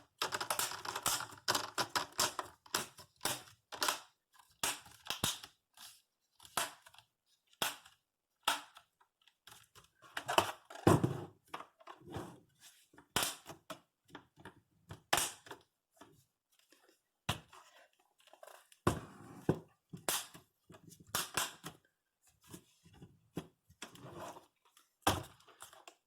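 Plastic screen bezel of a Dell Inspiron 15 laptop being pressed back onto the display lid: many irregular sharp clicks and snaps as its clips seat, with plastic handling rustle between them.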